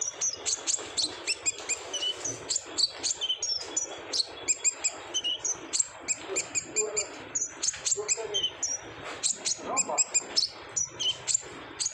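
Kolibri ninja (brown-throated sunbird) singing a fast, busy song of sharp high chirps, trills and quick sweeping notes with hardly a pause: a male in full, vigorous song.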